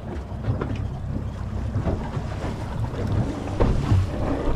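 Wind buffeting the microphone and water lapping against a small boat's hull, with a few scattered knocks.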